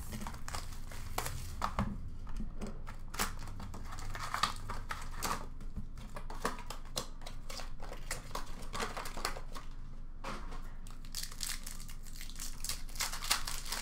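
Plastic shrink-wrap on a sealed hobby box of hockey cards crinkling and tearing as it is stripped off, then the cardboard box and the foil card packs handled, with many quick crackles throughout.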